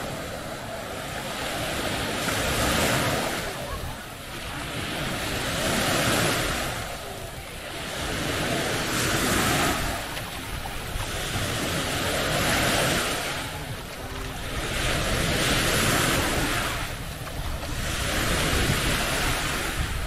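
Small waves breaking and washing up on a sandy shore, the rush of surf swelling and fading about every three seconds.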